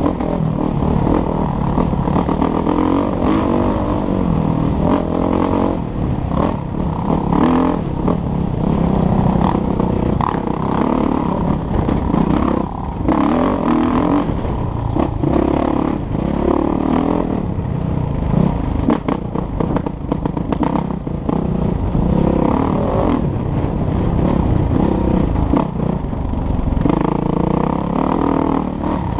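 Kawasaki KX450F dirt bike's four-stroke single-cylinder engine running hard on a trail ride, its revs rising and falling as the throttle opens and closes, with occasional knocks and clatter from the bike over rough ground.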